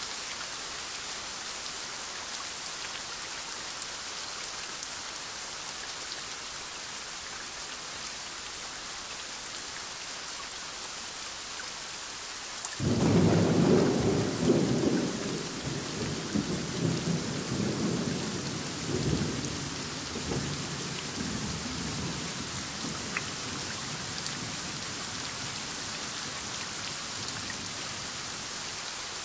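Steady heavy rain falling, and about halfway through a sudden close clap of thunder that rumbles on and fades away over several seconds.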